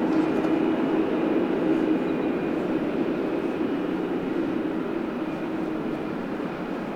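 Boeing 777F's twin GE90 turbofans at takeoff power: a steady jet engine noise with a held hum, slowly fading.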